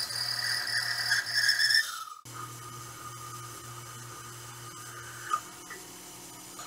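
CNC milling machine drilling holes in a sand-cast V-twin engine casing with a 5 mm drill under flood coolant: a steady high spindle whine with cutting noise. It cuts off abruptly about two seconds in and carries on at a lower pitch, with one brief sharp spike near the end.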